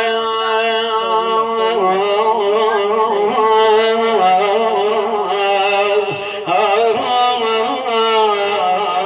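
A man singing an Arabic devotional chant praising Ali, drawing out long held notes with wavering melismatic ornaments and no added vocal effects. There is a short break about six seconds in.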